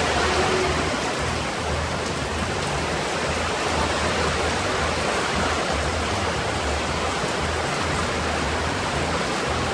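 Heavy tropical downpour with wind: a steady hiss of rain pouring onto a corrugated metal roof overhead and onto the wet ground, with an uneven low rumble of wind gusting on the microphone.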